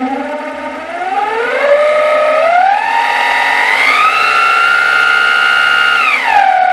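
DC drill motor running a small table-saw blade. Its whine climbs in steps as the PWM speed controller is turned up, holds at a high pitch, then falls near the end as the speed is turned back down.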